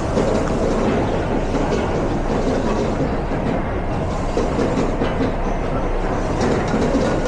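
Busy commercial kitchen noise: a steady, loud roar of cooking burners and extraction, with light clatter of pans and utensils.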